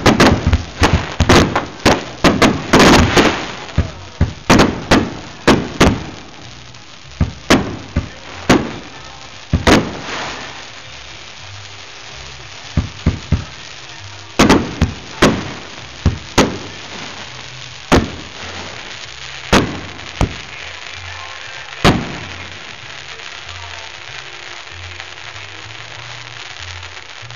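Consumer fireworks exploding: a rapid volley of crackling aerial bangs for the first few seconds, then single bangs about a second apart that thin out and stop a little past the two-thirds mark.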